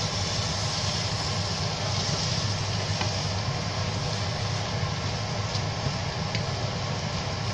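A wooden spatula stirring dry beef and potatoes in a non-stick frying pan, with a few faint scrapes, over a steady low hum and hiss.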